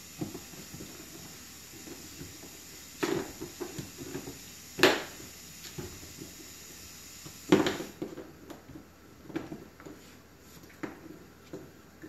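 A poodle puppy playing with a frozen teething ring on a hardwood floor: the ring knocks and skids on the boards amid light tapping and scuffling, with three louder sharp knocks about three, five and seven and a half seconds in.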